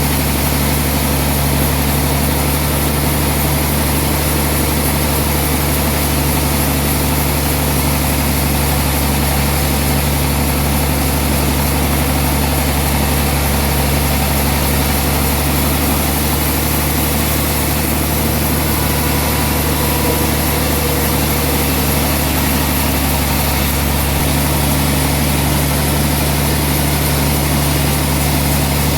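Sawmill machinery running at a steady speed: an even, unchanging low engine drone with no cutting strokes or changes in pitch.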